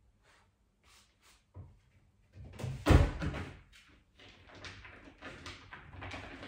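A heavy bang about three seconds in, followed by a run of scuffling and scraping noises, with a few faint clicks before it.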